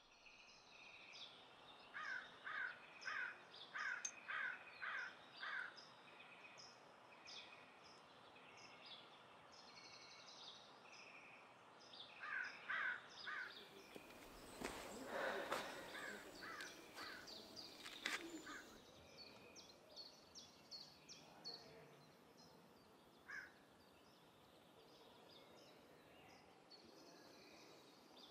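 Faint outdoor ambience of crows cawing in runs of several calls, about two a second, over small birds chirping. A broad rush of noise swells for a few seconds in the middle.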